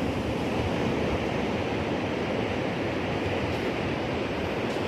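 Ocean surf on a beach, a steady, even rush of breaking and washing waves.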